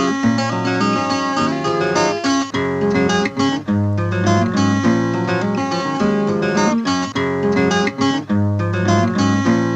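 Background music: acoustic guitar playing, with plucked and strummed chords.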